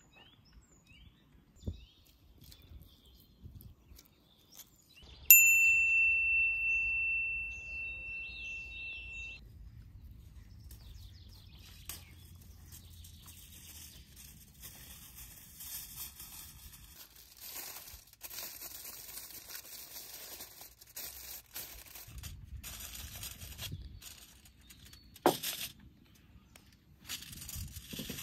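A single sharp metallic ding about five seconds in, ringing clear and fading over about four seconds. Light crinkling and rustling follows, ending with aluminium foil pulled off a roll and crackling, with one sharp snap as it tears.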